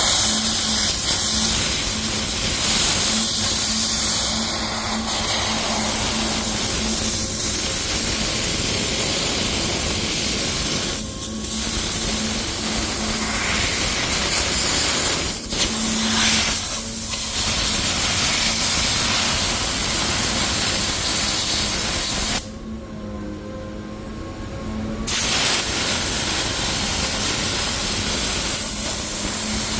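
Compressed-air paint spray gun spraying in long steady hissing passes, with brief breaks where the trigger is released and one longer pause of about two and a half seconds past the middle.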